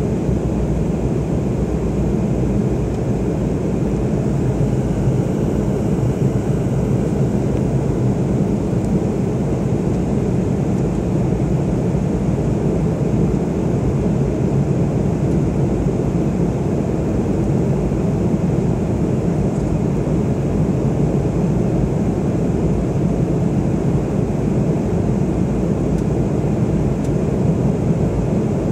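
Steady airliner cabin noise during the climb after takeoff: an even, unbroken rush of engine and airflow noise heard from inside the cabin, mostly low in pitch.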